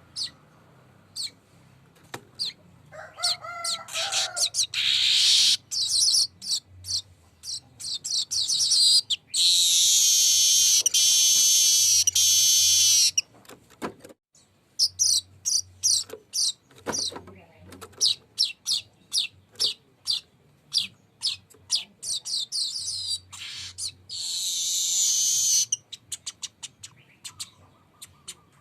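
Manyar (weaver bird) singing: rapid sharp chirps and ticks broken by long, dense, buzzing rolled trills, the longest lasting about three seconds around ten seconds in and another near the end.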